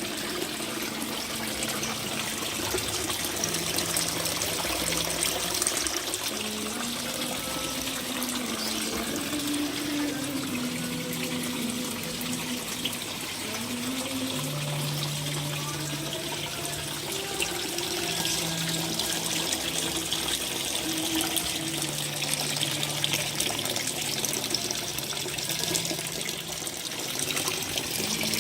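Water steadily trickling and splashing, an unbroken run of falling water, with faint low tones wavering underneath.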